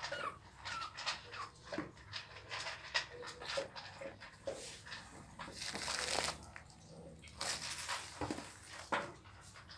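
Week-old pitbull puppies squeaking and whimpering as they crawl over each other, with a few short squeaks in the first second. Soft rustling of the towel under them comes in patches in the second half.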